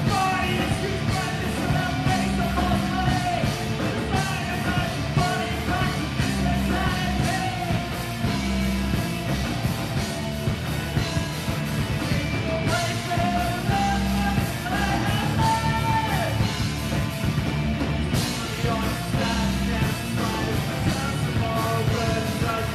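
Rock band playing live: electric guitars and a drum kit, with a singer's vocals over them.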